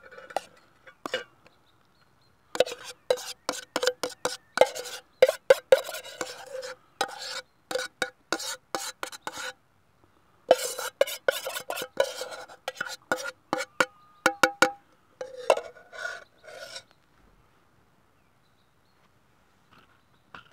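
Metal fork scraping and tapping around the inside of a metal cook pot, the pot ringing with each stroke, as food is scraped out onto a plate. It comes in two spells of quick strokes with a pause of about a second between, and stops well before the end.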